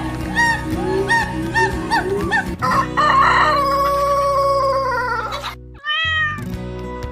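A rooster crowing: one long call of about three seconds, starting a couple of seconds in and holding a slightly falling pitch, over background music. Before it comes a run of short rising-and-falling calls, and after it a single short call.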